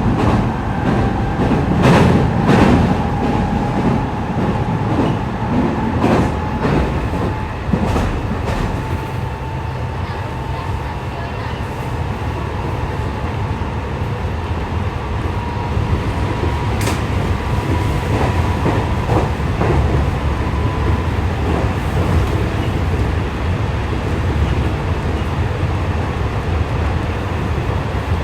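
JR West 207 series commuter train running, heard from inside the car: a steady low rumble of wheels on rail with occasional sharp clicks from rail joints. A thin motor whine slowly rises in pitch over about twenty seconds, then fades out.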